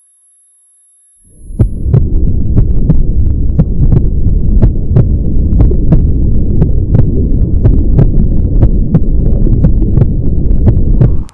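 Film sound design: a thin, high, steady ringing tone. From about a second and a half in it gives way to a loud, low throbbing rumble with sharp ticks at an even two to three a second. The rumble cuts off abruptly near the end.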